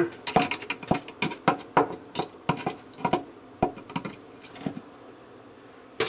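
Flathead screwdriver scraping and tapping in the plastic sump channels around the food chopper of a KitchenAid dishwasher, clearing out caked food gunk and debris. It is a quick run of sharp, irregular clicks and scrapes that thins out after about four seconds.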